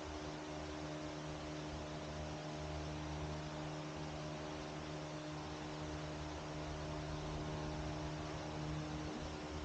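Steady electrical hum with several constant tones over an even hiss, with no distinct handling sounds.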